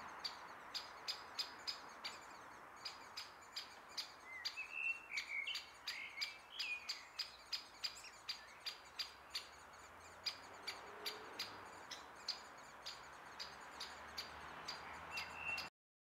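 Woodland birdsong: one bird repeats a short, high call about three times a second, and another bird sings a brief warbling phrase a few seconds in. Underneath is a steady background rush of distant traffic. The sound cuts off just before the end.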